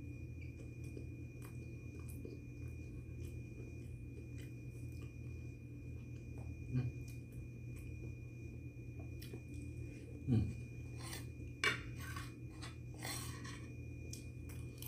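Quiet eating: khubz flatbread, gone tough, being torn by hand and chewed, with small scattered clicks. A few louder scrapes of cutlery on a plate come in the last few seconds, all over a steady low hum.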